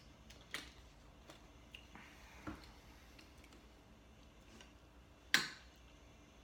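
A few small clicks and knocks as a plastic water bottle is put down and a spoon is picked up, then a sharp clink of a metal spoon against a ceramic soup bowl about five seconds in, the loudest sound.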